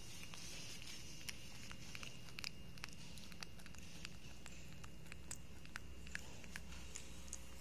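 Baby monkey sucking on its fingers: small, irregular wet clicks and smacks over a faint steady hiss.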